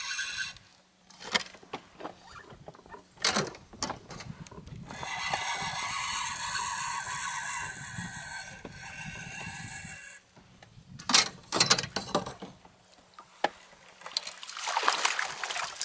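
A spinning reel being cranked in bursts while a hooked fish is played, its gear giving a steady whirring hum. Sharp knocks on the inflatable boat come in between, and near the end there is rustling as the landing net is reached for.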